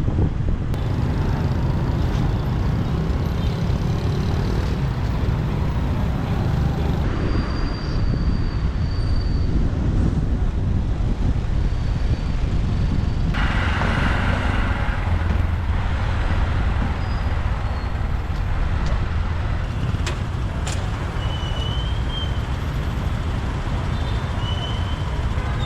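Motorbike riding through city traffic: a steady low rumble of engine and road noise with surrounding vehicles, and a few short high-pitched tones about eight seconds in and again near the end.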